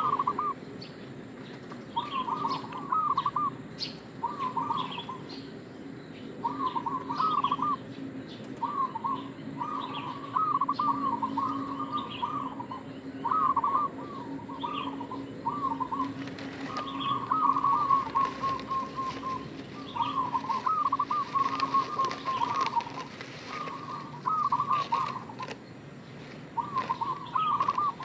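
Zebra dove (perkutut) cooing. A steady series of short, rippling, trilled coo phrases comes one every second or two.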